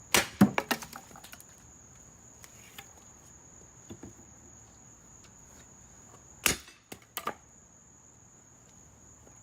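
A hand-forged, hardened rebar axe chopping into a dry log: a quick run of sharp strikes and wood cracks in the first second, then another hard strike about six and a half seconds in followed by two smaller knocks. Crickets chirp steadily throughout.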